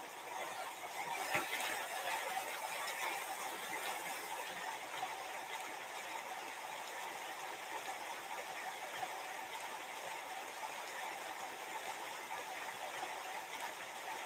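Recorded rain sounds playing steadily in the background, with a single sharp tap about a second and a half in.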